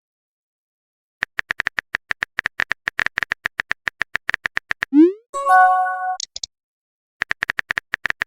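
Electronic sound effects: a rapid run of short, identical blips, about ten a second, for nearly four seconds. Then comes a quick rising boing and a brief chime-like tone. A second run of blips starts near the end.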